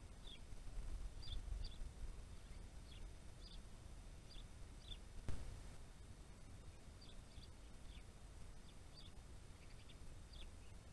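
Small wild birds giving short, faint, high chirps, scattered irregularly, over a steady low rumble of outdoor background noise. A single sharp click sounds about five seconds in.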